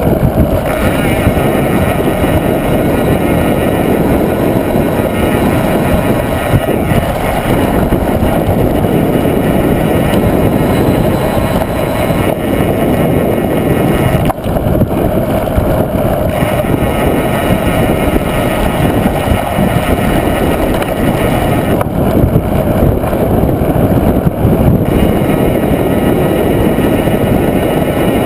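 Steady, loud wind rushing over an action camera's microphone as a mountain bike speeds downhill, mixed with the rolling noise of the ride.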